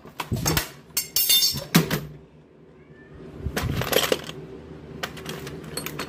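Metal tools and screwdriver bits clinking and rattling as a hand rummages through a toolbox drawer, mixed with a few short voiced sounds.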